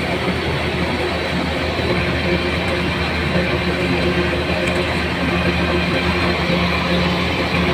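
An engine running steadily: a constant drone with a dense rattling noise over it, no change in speed.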